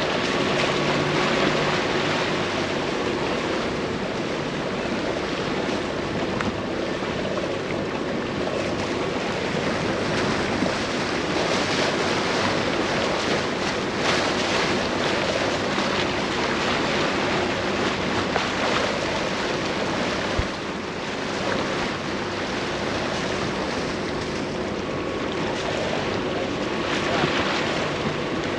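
Choppy water rushing and churning past a catamaran's hull as it crosses a tidal race of opposing currents and small whirlpools, with wind buffeting the microphone. A low, steady hum runs underneath.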